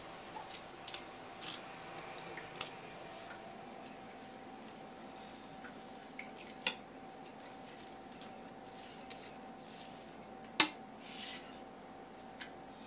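Kitchen knife cutting the rib bones away from a raw grunt (isaki) fillet on a wooden cutting board: scattered light clicks and short scrapes, with one sharp knock about ten and a half seconds in. A faint steady hum runs underneath.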